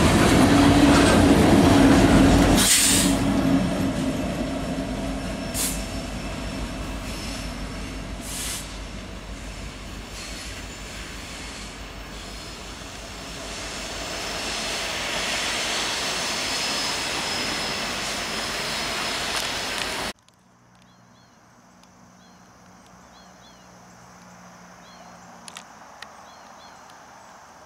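Train of empty B&LE steel hopper cars rolling past, loud at first with a sharp bang about three seconds in, then fading. The sound swells again as a CN SD70M-2 diesel locomotive approaches, then cuts off abruptly at about twenty seconds to a much quieter stretch of small bird chirps over a steady low hum.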